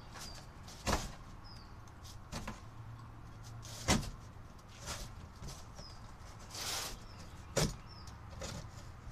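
A large cardboard box being pushed and shifted on a concrete floor: several sharp knocks, the loudest about four seconds in, and a brief scrape of cardboard about seven seconds in.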